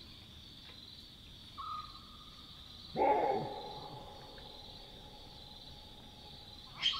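Chacma baboon giving one loud, sudden alarm bark about three seconds in, the call of a baboon alerted to a nearby predator, over a steady high chirring of night insects. A long steady note holds for about four seconds after the bark, and a short sharp call sounds near the end.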